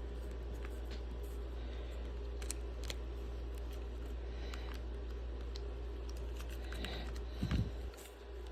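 Scattered light clicks and taps of hard plastic case parts being handled and fitted onto a Nintendo Switch 2, over a steady low hum. A louder bump comes about seven and a half seconds in.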